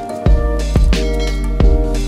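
Background music with a steady beat of about two drum strikes a second over held bass and melody notes.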